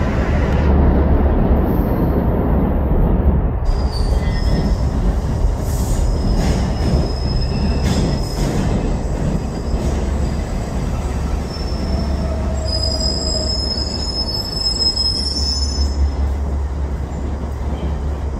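Subway track geometry work train moving slowly along the track, a steady low rumble with clicks of the wheels over rail joints. A thin high wheel squeal rises about two-thirds of the way through and fades out a few seconds later.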